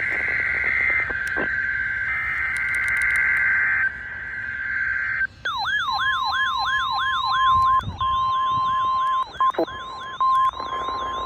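Emergency Alert System SAME header data bursts, shrill warbling digital chirps, for about the first five seconds. Then a fast up-and-down sweeping alert tone, about four sweeps a second, sounds together with a steady single-pitch alert tone, the NOAA Weather Radio 1050 Hz warning tone. Radio static rises under the tone near the end.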